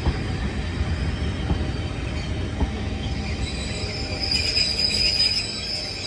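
Passenger coaches rolling slowly past, a steady low wheel rumble with a few clicks as wheels cross rail joints. About four seconds in a high metallic wheel squeal comes in and becomes the loudest sound.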